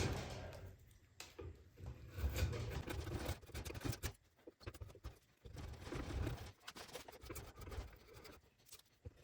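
Faint, irregular scraping and light knocks of hand tools working a juniper axe-handle blank.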